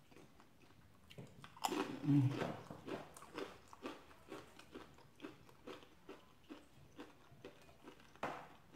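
Close-miked bite into a Frito corn chip scoop loaded with chili, followed by steady crunchy chewing, about two to three chews a second, with another loud crunch near the end.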